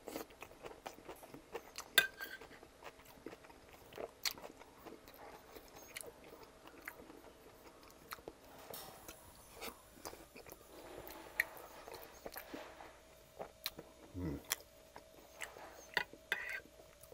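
Close-miked chewing of a mouthful of pasta with breaded chicken and meat sauce: soft, wet mouth sounds with scattered sharp clicks, the loudest about two seconds in. Near the end a metal spoon scrapes and taps the plate while scooping the next bite.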